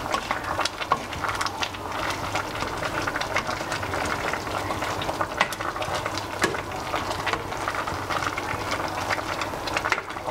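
A saucepan of chunky vegetable soup bubbling as it cooks, with a spoon stirring through it: a dense, steady crackle of small pops and ticks over a low hum.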